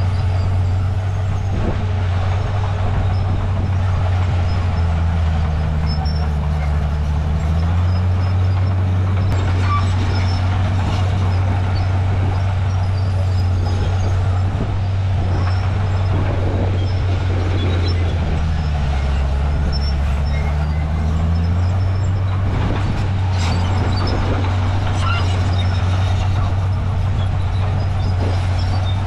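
Komatsu D51PX bulldozer's diesel engine running steadily and hard. Its note shifts twice, for a few seconds each time, about a fifth of the way in and again past the middle.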